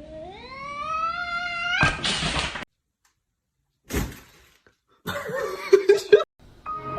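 A cat's long yowl rising steadily in pitch for about two seconds, cut off by a short burst of rough, noisy sound. After a second of silence there is a single thud, then a stretch of wavering cries with a few sharp loud peaks. Music comes in near the end.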